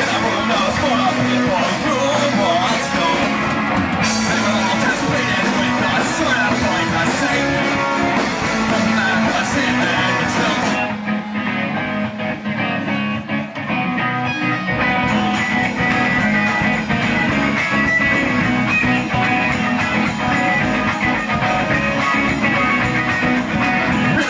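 Live punk rock band playing, with electric guitar and singing. About eleven seconds in, the sound thins out, losing its deepest lows and top highs for about four seconds, before the full band comes back in.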